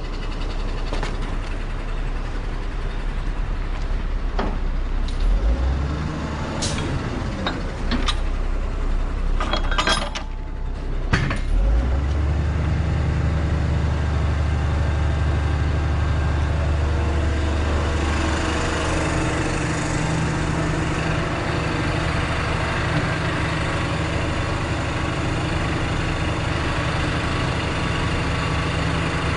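Heavy crane tow truck's diesel engine running, stepping up to a louder, steady higher speed about twelve seconds in as the revs are raised to work the recovery crane. A few sharp metal clinks from hooks and straps come in the first dozen seconds.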